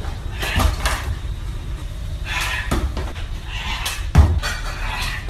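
A handful of thumps and knocks from fruit being tossed and handled over a cutting board. The loudest is a deep thud about four seconds in.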